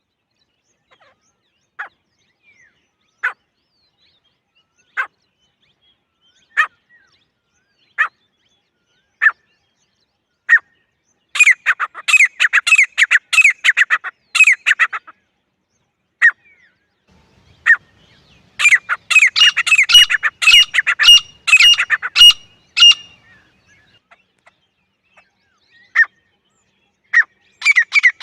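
Grey francolin calling: sharp single notes about every second and a half, breaking into fast runs of repeated shrill calls. One run comes about a third of the way in, another just past halfway, and a third starts near the end.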